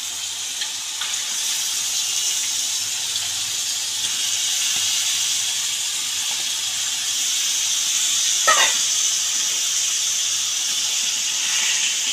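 Washed raw chicken pieces sizzling and hissing steadily as they land in hot onion-tomato masala in a kadai, the water on the meat spitting in the oil. A brief scrape comes about eight and a half seconds in.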